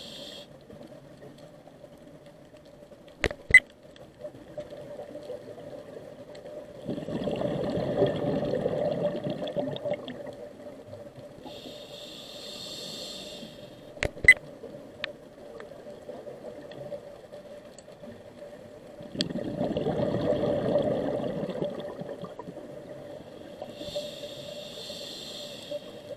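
Scuba diver breathing through a regulator underwater: two long bursts of exhaled bubbles, each followed by a hissing inhale. Two sharp clicks fall between the breaths, and a faint steady hum lies under it all.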